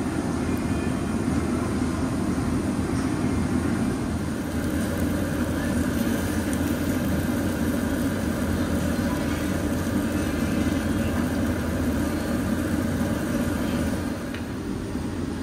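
Steady rushing background din of a busy restaurant, with faint voices in it; it eases slightly near the end.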